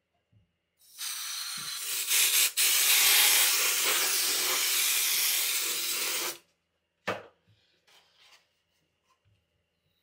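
Can of compressed-air duster spraying, a long steady hiss of about five and a half seconds with a brief break about two and a half seconds in, blowing dust out of a dehumidifier's coil and filter. A short knock follows about a second after the spray stops.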